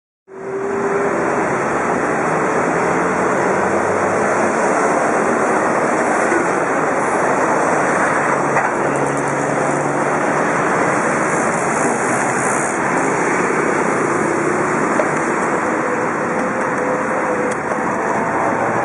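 Loud, steady wind noise buffeting the microphone of a bicycle-mounted camera while riding, with city road traffic underneath. It cuts in abruptly just after the start.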